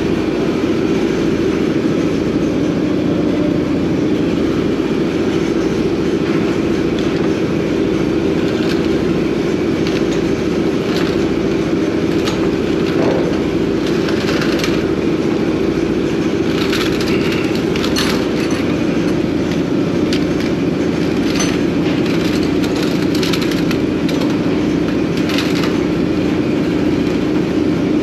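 Steady engine or machinery drone, with a strong low hum and an even pulsing beneath it. Scattered light clicks and knocks of hand work sound over it, more of them in the second half.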